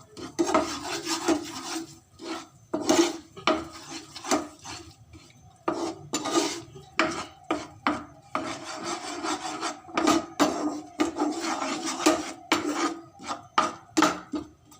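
A utensil stirring and scraping a thick, sticky mixture of melted jaggery, ghee, nuts and dry ginger powder around a pan, in repeated uneven rasping strokes.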